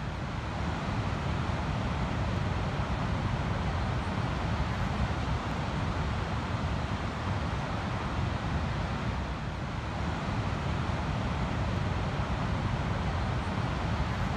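Ocean surf breaking on a sandy beach: a steady wash of waves, heaviest in a deep rumble, with no single crash standing out.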